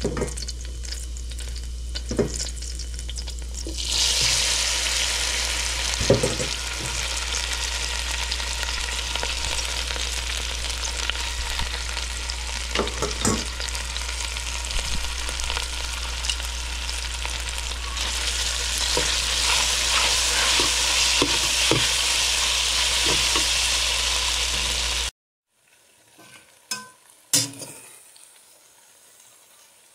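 Flat noodles and chili-flake sauce sizzling in a frying pan as they are stir-fried, with scattered clicks of the utensil against the pan over a steady low hum. The sizzle grows louder about four seconds in and cuts off suddenly near the end, leaving a few quieter clicks and scrapes.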